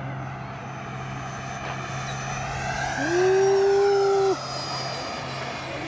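80 mm electric ducted-fan RC jet making a fast low pass, its fan whine rising in pitch as it approaches and falling as it goes by. A loud steady held tone sounds for about a second, starting about three seconds in.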